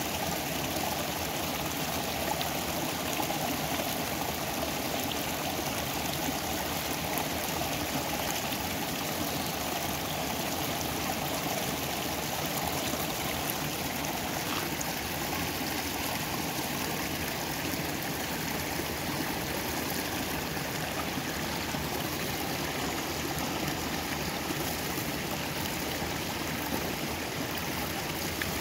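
A stream running steadily: an even, unbroken rush of water.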